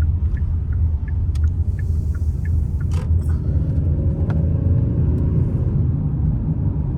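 Steady low road and engine rumble of a moving car, heard from inside the cabin, with a few faint clicks in the first few seconds.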